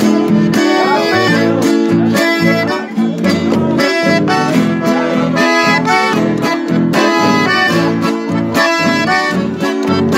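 Live chamamé played on a piano accordion over strummed acoustic guitar, a steady lively rhythm with the accordion carrying the melody.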